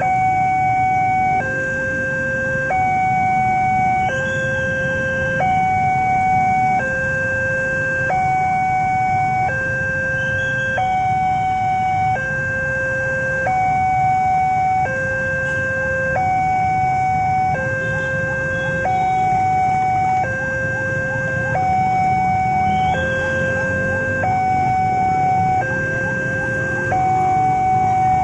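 Railroad level-crossing warning alarm sounding an electronic two-tone signal, a higher and a lower tone alternating about every one and a half seconds: the barrier is down and a train is approaching. Underneath, queued cars and motorcycles idle with a steady low rumble.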